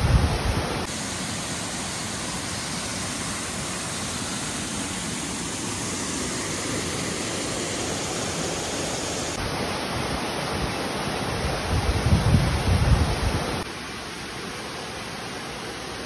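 Steady rushing hiss of a waterfall cascading over boulders into a creek pool. A low rumbling swell comes about twelve seconds in, and the water noise drops suddenly in level at a shot change near the end.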